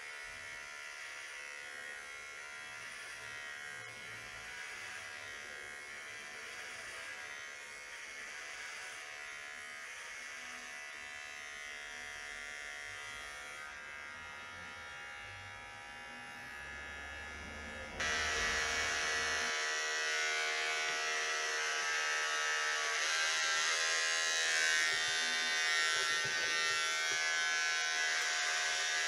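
Corded electric hair clippers running with a steady buzz while cutting hair; the buzz turns suddenly louder about two-thirds of the way through.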